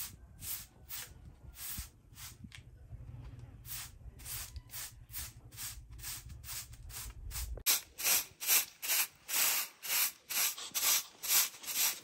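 Short straw hand broom sweeping a concrete yard in brisk, even strokes, about two to three swishes a second. The swishes become much louder and closer about two-thirds of the way through, and a low rumble under them stops at that point.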